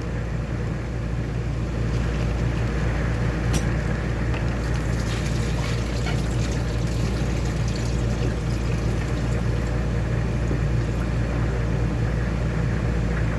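Steady rushing of water, even and unbroken, with a light clink of dishes about three and a half seconds in.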